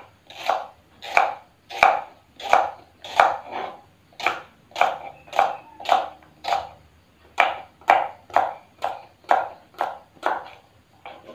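Kitchen knife chopping taro stalks on a small wooden cutting board: a steady run of crisp chops, about one and a half a second.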